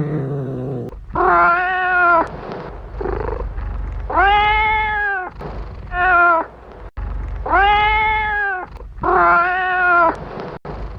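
Kitten meowing over and over: about six drawn-out meows, each rising and falling. A lower, rougher call comes in the first second.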